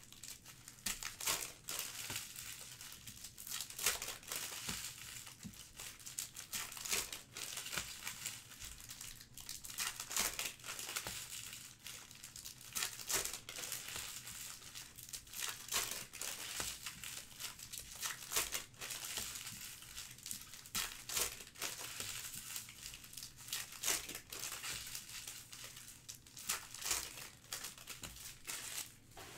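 Trading card pack wrappers crinkling and tearing as packs are ripped open and handled, a continuous run of crackly rustling with frequent sharp rips.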